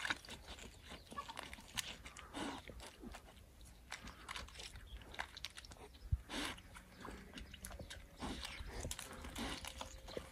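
Vietnamese pot-bellied pigs grazing, with a scatter of faint crunching and biting sounds at irregular intervals.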